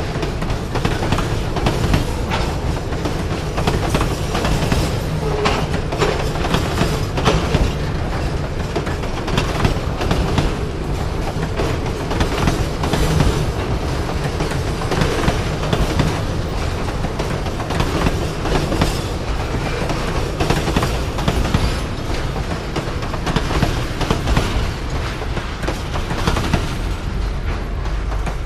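Freight train of railway tank cars rolling past at close range: a continuous low rumble with steel wheels clicking and clattering over the rail joints. The last car goes by near the end and the noise falls away.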